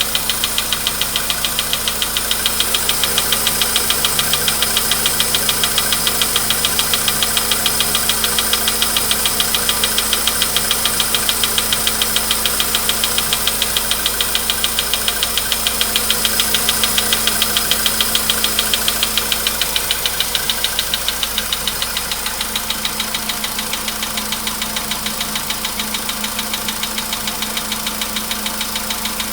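Volkswagen Polo Sedan petrol engine idling a few minutes after a cold start, with a rapid, even metallic knocking over the running, like an anvil. The owner says the knock is getting worse as the car nears 100,000 km.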